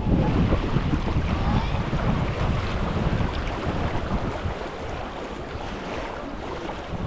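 Fast, choppy river water rushing and splashing around a kayak drifting through riffles, with wind buffeting the microphone. A little louder in the first couple of seconds.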